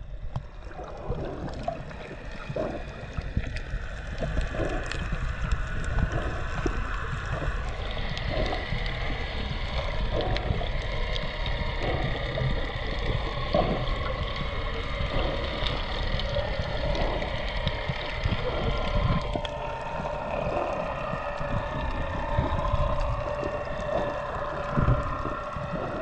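Underwater sound picked up by a camera in the sea: a steady low rumble of moving water with scattered small knocks and bubble pops. Over it runs a steady drone of several tones, which changes about eight seconds in and again near twenty seconds.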